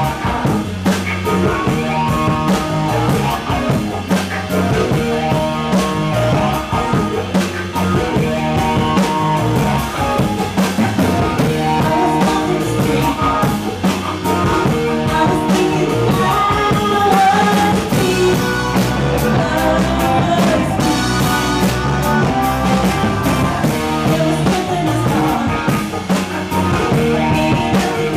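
A live rock band playing, with electric guitar, keyboards and drums, and a woman singing over it from about halfway through.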